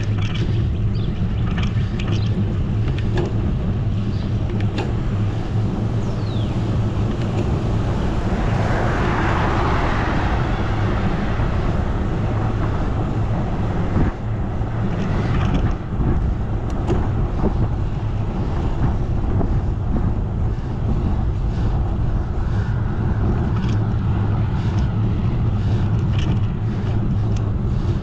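Steady rush of wind on the microphone and road noise from a bicycle ride, with a swell of louder rushing about nine seconds in.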